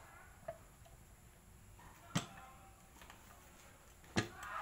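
A few isolated sharp metal knocks and taps as steel bars clamped in a bench vise are handled: a faint tap about half a second in, a louder knock about two seconds in, and another knock with a short ring near the end. Otherwise quiet.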